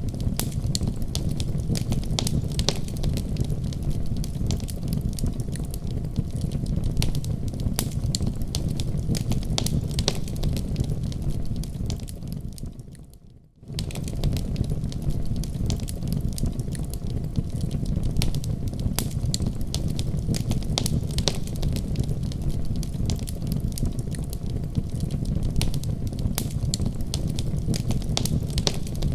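Wood fire in a fireplace crackling, with a steady low rumble of flames under frequent sharp pops. About twelve seconds in, the sound fades away to almost nothing, then comes straight back at full level: a seam where the recording loops.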